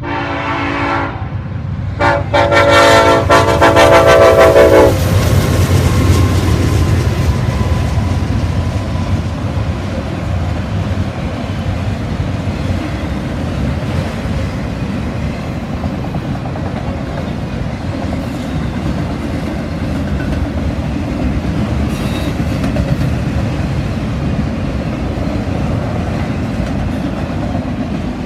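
Norfolk Southern diesel freight locomotive's horn sounding a short blast, then a longer, louder one of about three seconds. The freight train then rolls past with a steady rumble of locomotive and railcar wheels on the track.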